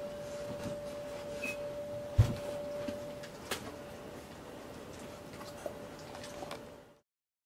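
Quiet room noise with a steady high-pitched hum, a single low thump about two seconds in and a few faint clicks; the sound cuts off about half a second before the end.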